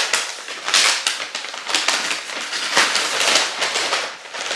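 Packaging rustling and crinkling as it is handled and pulled apart inside a shipping box: a dense, continuous run of crackles and scrapes.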